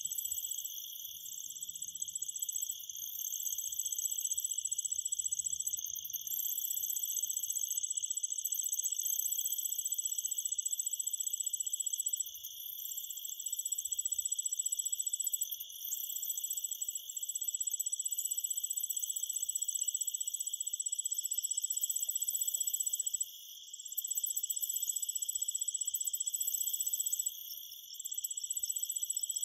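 High-pitched, continuous cricket-like insect trill, broken by a few short pauses.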